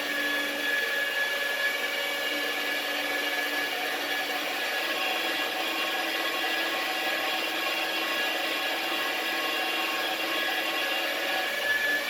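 Magnetic drill's electric motor running at a steady speed, a constant whine with several fixed tones, spinning a half-inch brass bar as a makeshift lathe.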